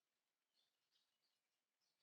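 Very faint bird chirps: a few short, high notes clustered about half a second in, and again near the end.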